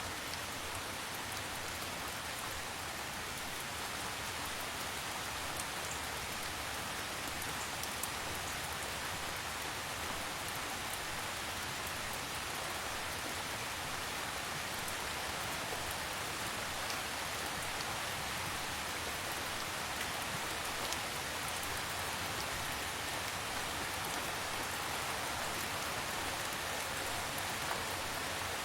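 Steady, gentle rain falling: an even hiss with a few individual drops ticking now and then.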